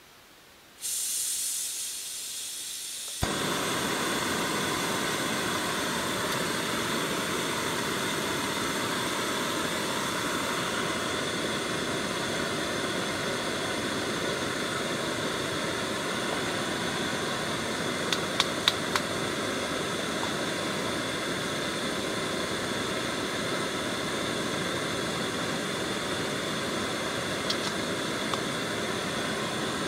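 Gas canister camp stove being lit: gas hisses from the opened valve about a second in, then the burner catches with a click at about three seconds and runs on with a steady, even rushing sound. A few light clicks come over it later.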